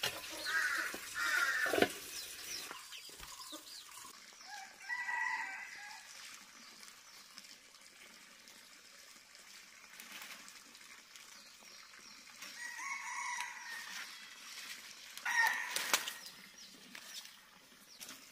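Domestic chickens: a rooster crowing a few times, with hens clucking in between.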